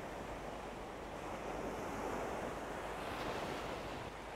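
Ocean surf breaking and washing up a sandy beach, a steady rush of water that swells a little about two seconds in.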